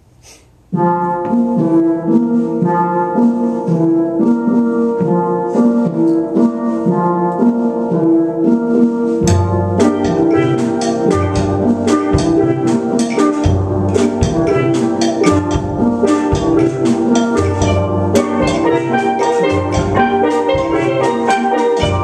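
Steel drum band of steelpans playing a calypso tune: the pans come in together about a second in with long held chords, and about nine seconds in the bass pans join and the notes turn into a quicker struck rhythm.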